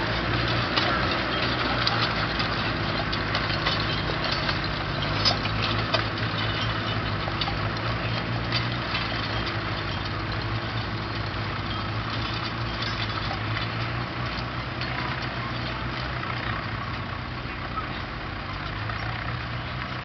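Land Rover engine running steadily under load while pulling a trailed plough through the soil, with scattered clicks and clanks. The sound eases slightly toward the end as the vehicle moves away.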